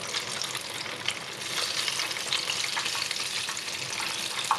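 Batter-coated banana pieces deep-frying in hot oil on high heat, a steady dense crackling sizzle as wooden chopsticks turn them, with a single short click near the end.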